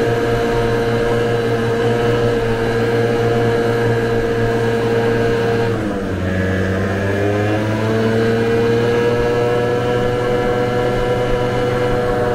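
Vespa scooter's single-cylinder engine running at a steady cruise. About six seconds in the pitch drops as the throttle eases, then climbs back over a couple of seconds as the scooter accelerates again.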